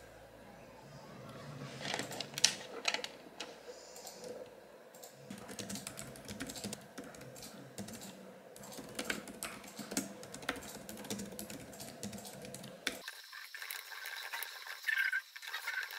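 Typing on a white low-profile computer keyboard: a fast, uneven run of key clicks that sounds thinner in the last few seconds.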